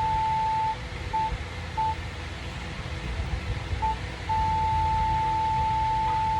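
Morse code sent as a single steady tone switched on and off: a long dash ends just under a second in, two short dots follow, then another short dot, and a second long dash begins a little after four seconds and runs on. A low rumble sits underneath.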